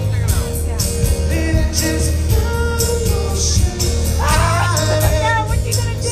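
Music with singing over a steady bass beat.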